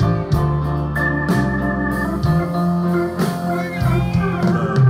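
A live band plays slow soul music. Hammond organ chords are held and change every second or so over electric bass and grand piano, with cymbal strokes keeping time.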